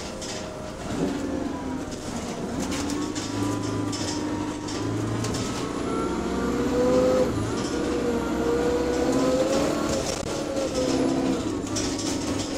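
Inside the saloon of Go-Ahead London bus SE62, the engine's moan climbs steadily in pitch as the bus accelerates and drops back again about two seconds before the end, over a low hum with light rattles and clicks from the interior.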